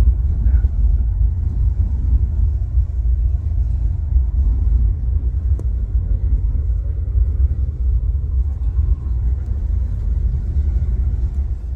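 Steady low rumble of running air handling equipment, with one faint click about halfway through.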